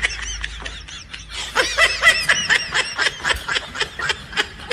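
High-pitched snickering laughter, a quick run of short squeaky giggles that gets louder about a second and a half in.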